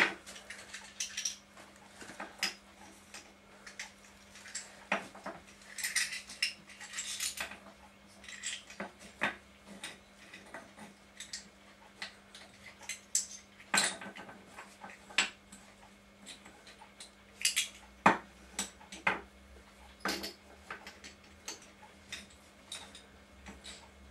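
Small seashells clicking and clinking as they are handled and set down one by one on a shelf, in scattered sharp taps, some in quick little clusters, over a faint steady hum.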